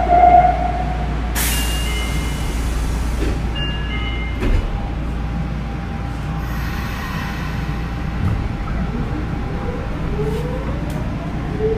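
Inside a Nagoya subway 2000 series car driven by a Mitsubishi GTO-VVVF inverter. About a second in there is a burst of compressed-air hiss lasting about two seconds, over a steady air-conditioning din. From about eight seconds in, the inverter and traction motors give a rising whine of several stepped tones as the train starts to pull away.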